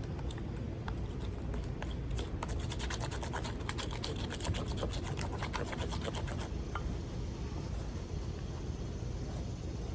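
Small campfire of thin tinder and twigs crackling, with a dense run of sharp pops from about two seconds in to about six and a half seconds, over a steady low rumble.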